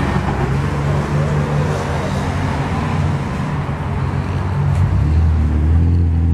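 Road traffic: vehicle engines running and tyre noise on the road, with a vehicle's engine hum building about five seconds in.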